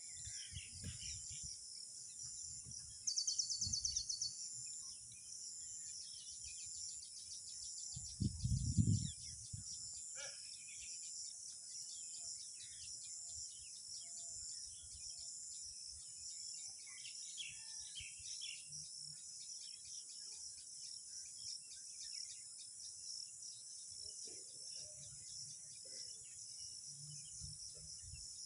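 Outdoor ambience of a steady high insect drone with scattered bird chirps. A fast buzzing trill about three seconds in, and a brief low rumble around eight to nine seconds.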